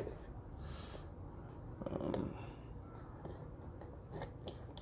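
A blade scraping and slitting the packing tape along the seam of a cardboard box, with light scratching and a few sharp clicks. A louder scrape comes about two seconds in.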